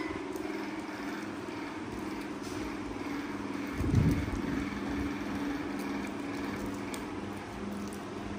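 Steady hum of a running motor, with a single dull thump about four seconds in.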